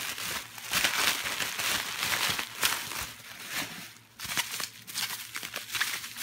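Plastic bubble wrap crinkling and rustling in irregular bursts as hands handle a wrapped item, with a short lull about four seconds in.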